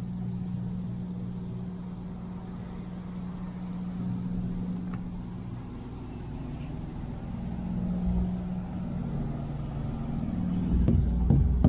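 Steady low hum of idling diesel semi-trucks, its pitch shifting slightly partway through, with a cluster of loud low thumps near the end.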